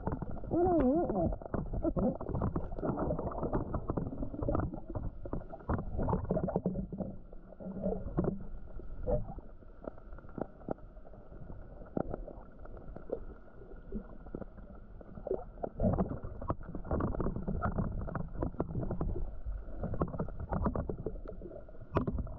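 Muffled underwater sound heard through a camera's waterproof housing: a low sloshing rumble with many irregular clicks and knocks, and a short wavering hum about a second in.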